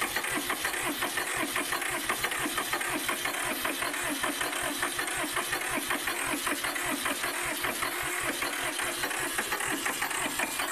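Massey Ferguson 1010's three-cylinder diesel engine being cranked on the starter with ether sprayed into its intake, chugging in a steady, even rhythm without catching into a run.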